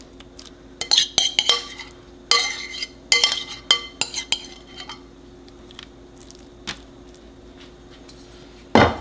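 A utensil clinking and scraping against a bowl as stuffed butternut squash filling is scooped back into the squash shells. There is a flurry of ringing clinks in the first five seconds, then a single heavier thump near the end.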